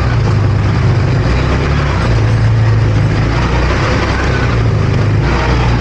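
ATV engine running under way: a loud, steady low drone that shifts a little in pitch, with a rushing noise over it.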